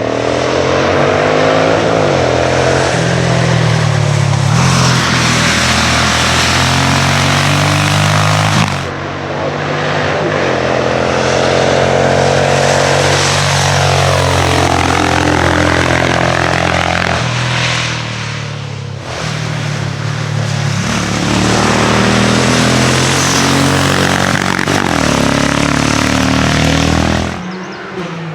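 Racing car engines at high revs climbing a hill, their pitch stepping up and down with quick gear changes. The sound changes abruptly about 9 and 19 seconds in, as one car gives way to the next.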